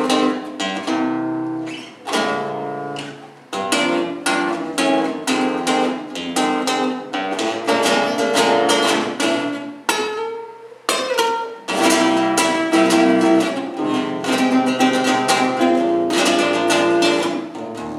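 Acoustic guitar playing an instrumental passage of strummed and plucked chords, with a short break around ten seconds in.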